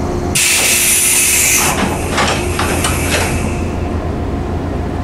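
JR West 115 series train's pneumatic doors closing. A sharp hiss of air about half a second in is followed by the door panels sliding shut with several clunks over the next two seconds, over a steady low hum from the stationary train.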